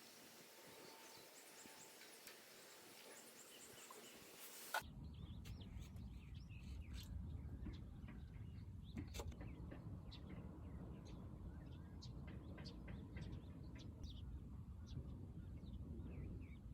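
A faint, even hiss. About five seconds in it cuts to a low, steady rumble with scattered short bird chirps over it.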